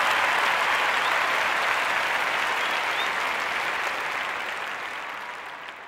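Audience applauding, slowly fading out toward the end.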